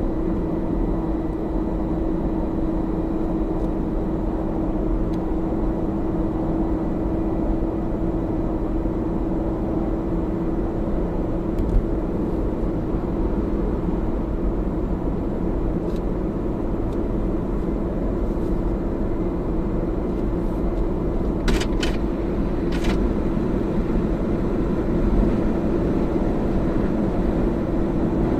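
A Toyota Camry AVV50 running on the road with steady road noise and a constant hum, from a front-left driveshaft bearing worn through age-related wear. A few short clicks come about three-quarters of the way through.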